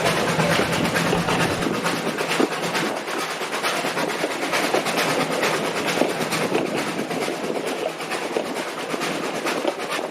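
Brecon Mountain Railway narrow-gauge train running: a steady rumble of wheels on track with a dense patter of small clicks.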